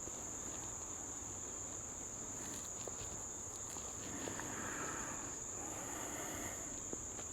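Steady high-pitched trill of crickets, with a few faint clicks and a soft rustle of gear being handled.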